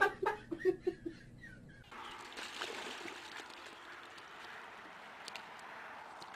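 Brief talking, then a steady, faint hiss of river water at the bank.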